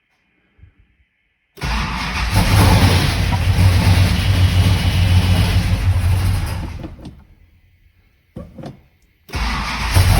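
1968 Dodge Charger's 440 big-block V8 starting after a fuel pump gasket replacement: it fires about a second and a half in and runs for about five seconds, then dies away. After a short burst of cranking it fires again about nine seconds in and keeps running.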